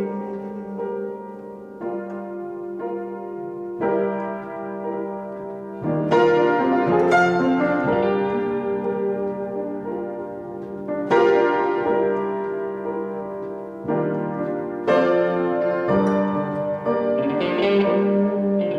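Piano music playing slow chords, each new chord struck every few seconds and left to ring.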